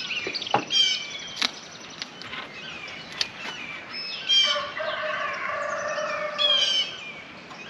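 Small birds chirping in short repeated phrases, with one drawn-out call from a chicken lasting about two seconds, starting about five seconds in. A few sharp clicks in between.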